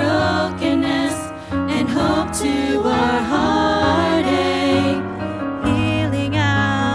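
A small group of singers sings a gospel song over instrumental backing, with long held, wavering notes.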